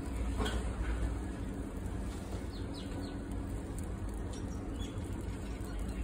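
Small open fire of burning paper crackling faintly over a steady low outdoor rumble, with a few short high bird chirps a little after halfway.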